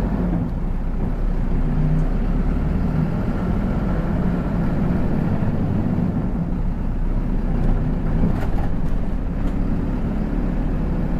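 A city bus's engine and road noise heard from inside the moving bus's cabin: a steady low hum, with a few faint clicks about eight to nine seconds in.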